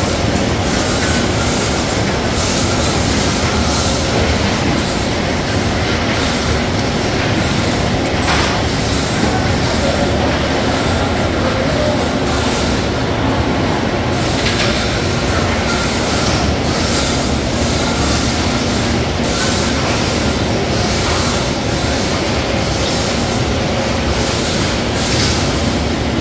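Steady, loud din of crab-processing-line machinery, conveyors and a rotating perforated stainless drum, with faint steady machine tones and occasional sharp clatters.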